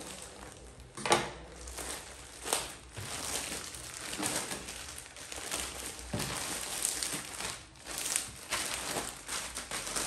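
Plastic mailing bag crinkling and rustling as it is cut open with scissors and handled, the plastic-wrapped shirts pulled out of it. Irregular rustles with a few sharp clicks, the loudest about a second in.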